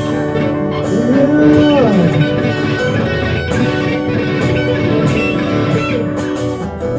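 Live band music led by a guitar: a slow, romantic number with held notes that are bent or slid up and down in pitch, over a bass line.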